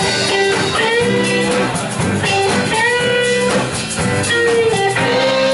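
Live band playing an instrumental break: an electric guitar lead with notes bent up in pitch, over a drum kit and bass guitar.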